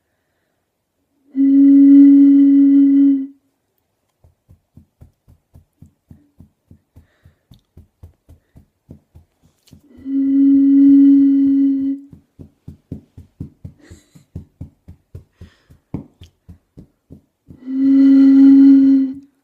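Fog horn sounding three times, each blast a steady low tone of about two seconds, spaced roughly eight seconds apart. Between the blasts there is a quieter, quick run of soft pulses, about three a second.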